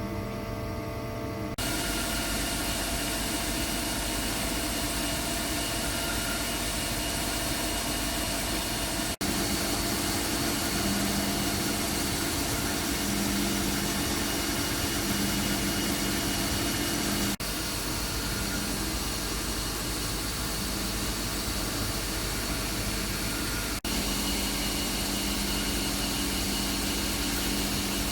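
Machine tool running steadily: a continuous mechanical hum and whine over a hiss. The sound changes abruptly several times, about a second and a half in, then near 9, 17 and 24 seconds, as one shop-floor clip gives way to the next.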